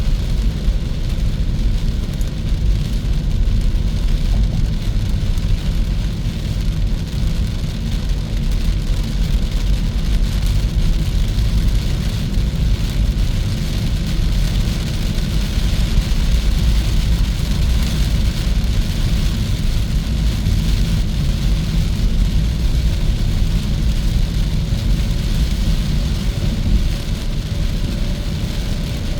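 Steady road and tyre noise of a Hyundai Kona EV driving at speed, a constant low rumble with a lighter hiss above it and no engine sound.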